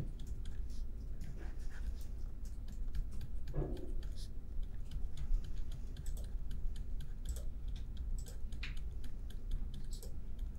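Irregular light clicks and taps from a computer mouse and keyboard, over a low steady hum.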